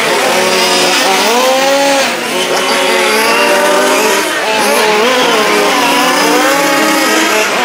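Several 1:5-scale RC Formula 1 cars with small two-stroke petrol engines racing, their engines revving up and down and overlapping as they pass.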